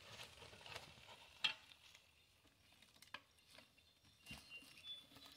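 Near silence with a few faint scattered crackles and clicks from a mountain bike rolling over dry pine needles and leaves on a dirt trail.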